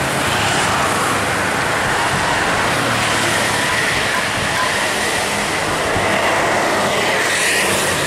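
Tour bus driving past at close range: steady engine and road noise, swelling near the end as it goes by.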